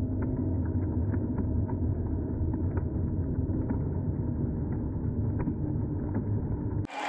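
Slow-motion, pitched-down sound of a sea lion splashing into a pool with the crowd around it: a deep, steady rumble with faint, slow ticks. Just before the end it drops out and normal-speed crowd applause begins.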